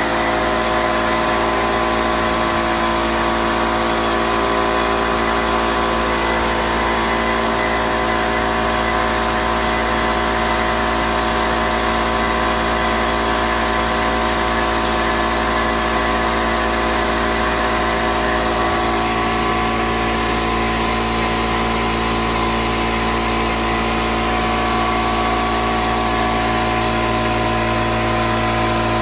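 Hose-fed spray gun hissing steadily as top coat is sprayed onto the cabinets, over the constant droning hum of the machine supplying its air.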